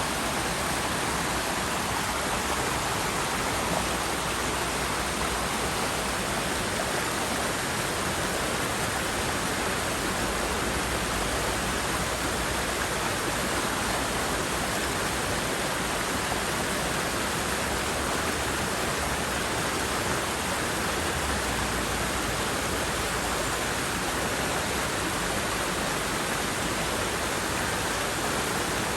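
River water rushing steadily over rocks, a continuous even roar of flowing water.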